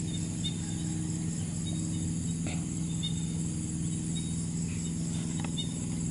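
Crickets and other insects chirping steadily over a constant low hum, with faint short chirps scattered throughout.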